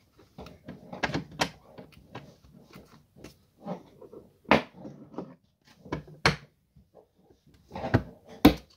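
Irregular clicks and knocks of metal parts being handled as a new gas strut is fitted to an ottoman bed's steel lift mechanism. The sharpest knocks come about halfway and near the end.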